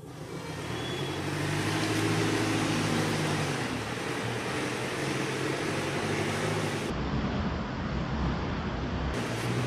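Motor vehicle engine and traffic noise running close by. The noise swells over the first two seconds and then holds steady, with a low engine drone under it.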